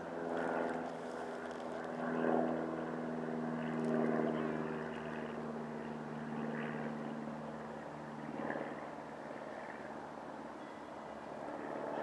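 A distant engine drones steadily at an even pitch. It is strongest for the first five seconds or so, then fades away.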